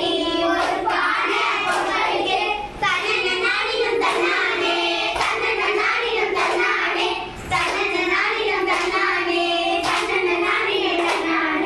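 Group of schoolgirls singing a Tamil kummi folk song, clapping their hands together in time about once a second.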